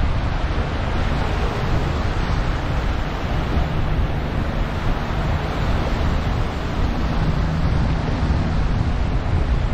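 Small waves washing up on a sandy beach, with wind buffeting the microphone.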